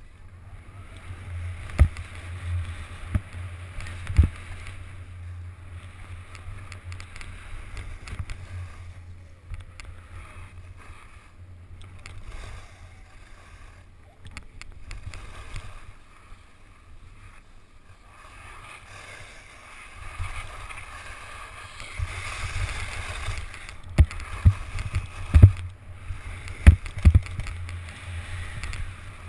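Skis sliding and scraping over packed snow on a downhill run, with a steady wind rumble on the microphone. A few sharp knocks come through, a couple early and a cluster near the end.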